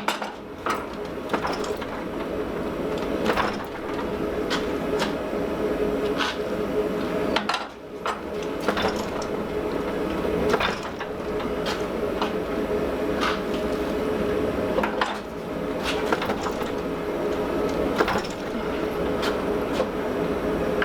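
Forging blows on hot steel, about one sharp strike a second with slightly irregular spacing, over a steady drone with a constant mid-pitched tone.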